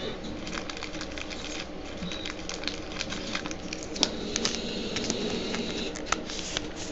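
Trading card handled between fingers: scattered light clicks and rustling of card stock and plastic, with a few sharper ticks in the second half.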